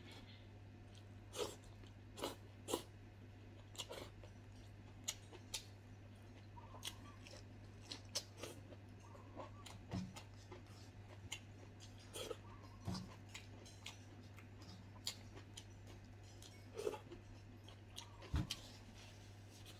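A person chewing food with the mouth close to the microphone: short, sharp, wet mouth clicks and smacks come irregularly, about once or twice a second. A faint steady low hum runs underneath.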